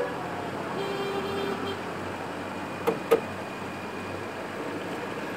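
Steady street traffic noise with vehicle horns: a fainter held horn tone about a second in, then two short horn toots in quick succession about three seconds in.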